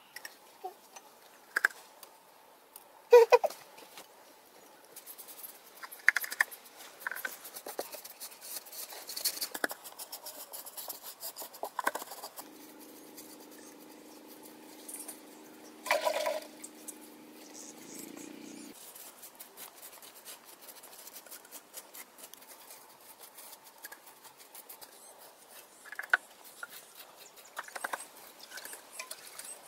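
Sporadic light taps, knocks and scrapes of hand work: a wooden pestle striking plant matter on a stone slab and paint brushes stroking an earth wall. Near the middle a steady low hum sounds for about six seconds.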